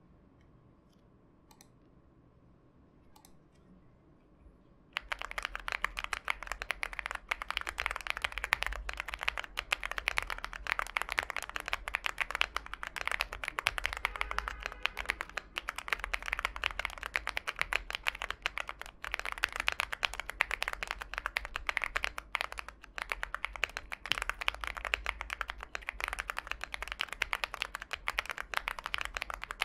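Typing on a Lucky 65 65% mechanical keyboard with IV Works Kanketsu Brevity tactile switches, lightly factory-lubed, on a PC plate with stock foams: a fast, continuous run of key presses, a creamy sound. The typing begins about five seconds in, after a few seconds of near quiet.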